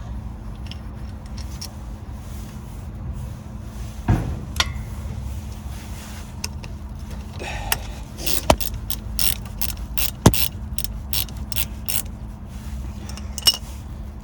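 Ratchet spanner clicking as the bolts holding a van's brake caliper are undone: a few sharp metal knocks, then a run of clicks about three a second over a steady low hum.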